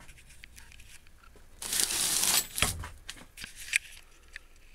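Handling noise: a rough scraping rustle lasting about a second, then a sharp knock and a few lighter clicks.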